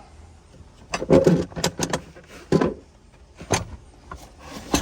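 Jack and tool kit being pulled up out of the compartment under the cargo floor, knocking and clanking: a cluster of knocks about a second in, then a few single knocks, and a rustle at the end.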